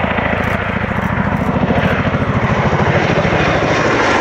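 Boeing Chinook HC.4 tandem-rotor helicopter flying past, its two rotors making a fast, even blade beat over the rush of its turbines. It grows a little louder about two seconds in as it comes closer.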